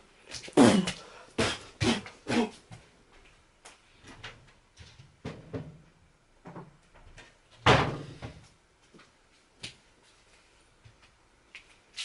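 Knocks and clatter of someone moving about off to one side and rummaging in a cupboard, its door opened and shut, with the loudest knock about eight seconds in.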